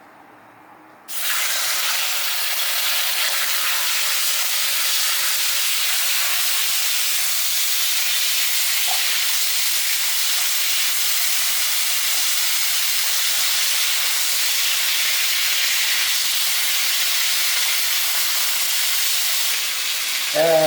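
Chicken going into a hot oiled pan: a sudden sizzle starts about a second in, then steady loud frying.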